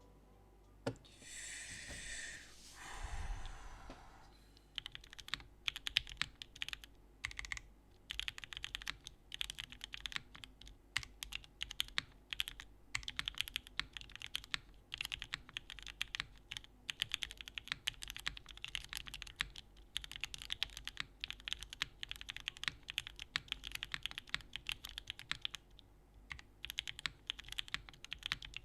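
Steady fast typing on a Pluto by Saab mechanical keyboard, O-ring mounted on an aluminium plate, with Gateron Oil King switches and Domikey Hush keycaps: dense, even key clicks with a brief pause near the end. In the first few seconds, before the typing starts, a short noisy sweep falls in pitch and ends in a low thump.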